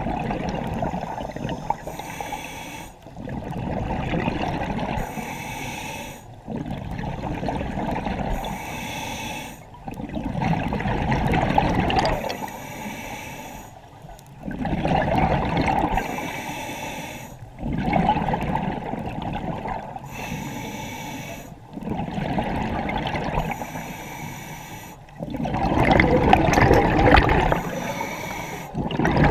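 Scuba regulator breathing heard underwater: a hiss on each inhale and a bubbling rumble of exhaled air on each exhale, about one breath every three to four seconds. The bubbles are loudest near the end.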